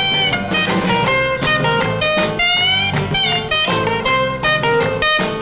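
Instrumental break of a 1963 novelty song, with a guitar playing a lead full of sliding notes over the band's swing beat.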